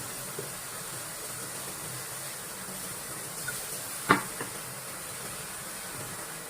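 A steady hiss, with one sharp knock about four seconds in.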